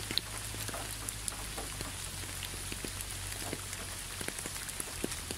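Steady rain with many scattered drops ticking close by.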